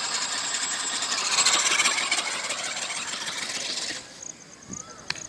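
Model ornithopter's motor and wing-flapping mechanism running in flight: a steady buzzing whir with a fine rapid clatter, which cuts off suddenly about four seconds in as the ornithopter comes down on the grass.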